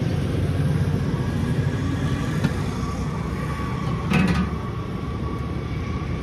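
Road traffic noise: a steady low rumble, with a brief louder sound about four seconds in.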